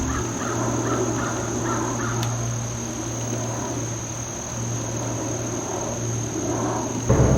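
A man's voice making crazed crow-like caws and squawks, several irregular calls. This is the host acting out the madness he says the bug brings on when eaten.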